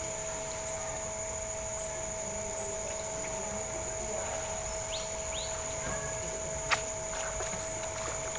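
Steady outdoor insect chorus, a continuous high buzzing drone, with a few short rising chirps about five seconds in and one sharp click near the end.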